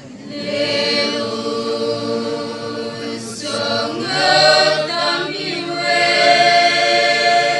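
Catholic youth choir singing in several voices, holding long sustained notes, with a brief break a little past three seconds in before the next phrase.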